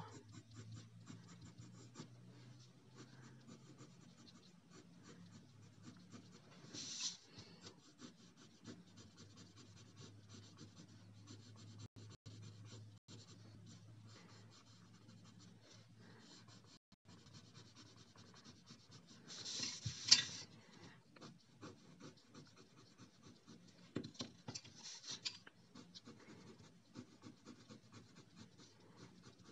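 Coloured pencil shading on paper: a faint, continuous scratchy rubbing of the pencil lead across the sheet, with a few louder stretches of stroking, the loudest about two-thirds of the way through. A low steady hum sits underneath.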